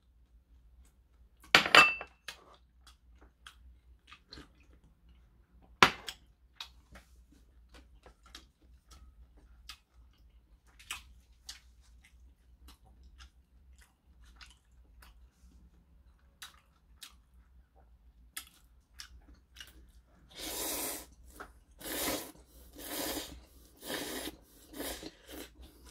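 Two sharp clacks of ceramic tableware being set down, then scattered light clicks of chopsticks and chewing. Near the end comes a run of about six loud slurps as ramen noodles are sucked up from the stew.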